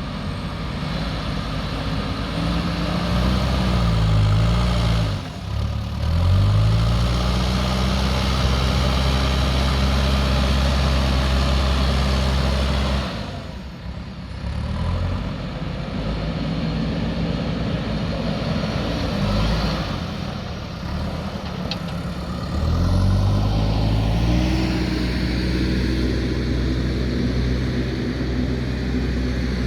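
JCB backhoe loader's diesel engine running under working load, its revs rising and falling as the machine works. The engine drops back briefly about five seconds in and again around fourteen seconds, then revs up strongly about twenty-three seconds in.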